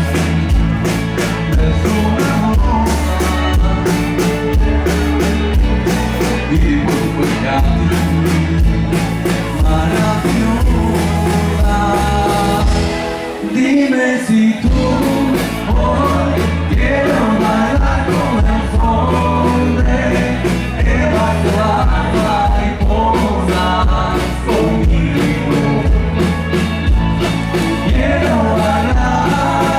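Rock band playing live, with singing over drums and bass guitar; the bass and drums drop out for about a second near the middle, then the band comes back in.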